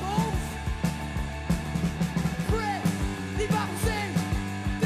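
Rock music with a steady drum beat and a singing voice.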